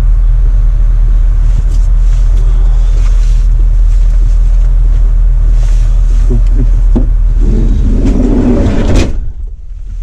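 Loud, steady low rumble of wind buffeting the microphone through a camper van's open side door. About nine seconds in, the van's sliding side door slams shut and the rumble suddenly drops away.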